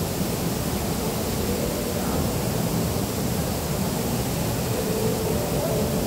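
Steady, even rushing background noise of a large shopping-mall atrium, the ventilation and room noise of the open hall. Faint brief tones come in near the end.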